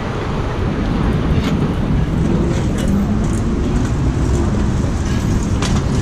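Steady city traffic rumble from a busy street, with a few light clicks now and then.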